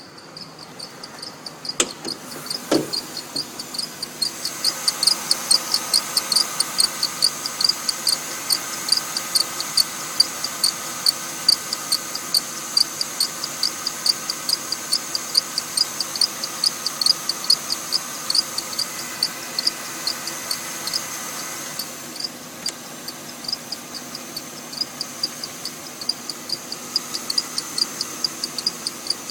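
Mercedes-Benz engine running with a rhythmic high-pitched squeak from the belt drive, several short chirps a second. It is a cold-start squeak that the owner suspects comes from a weak belt tensioner pulley or idler pulley. Two sharp knocks sound near the start.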